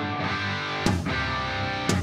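Background rock music led by a distorted electric guitar, with sharp accents about a second in and again near the end.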